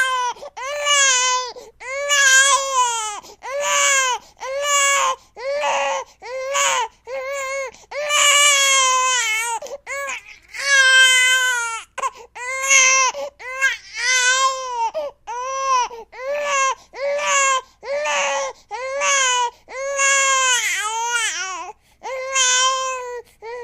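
Cartoon crying sound effect: a high-pitched voice wailing in a long run of short sobbing cries, each rising and falling in pitch, about one a second.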